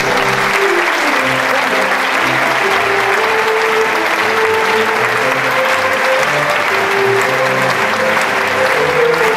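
Audience applauding loudly while a concert band keeps playing underneath.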